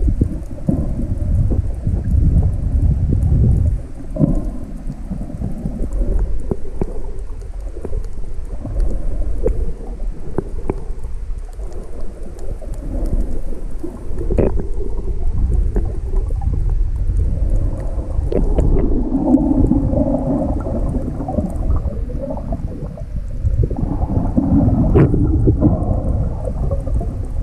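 Water noise heard from underwater: a continuous muffled low rumble and sloshing, swelling now and then, with a few sharp clicks about halfway through and near the end.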